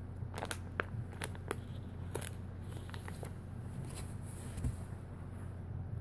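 Plastic face-mask packaging crinkling and crackling as it is handled, with a quick run of sharp crackles over the first two seconds or so and only a few after, over a steady low hum.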